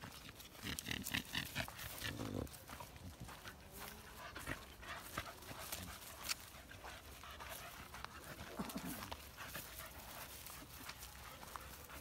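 A puppy giving a run of short, high, repeated cries about a second in, with footsteps through grass and leaf litter.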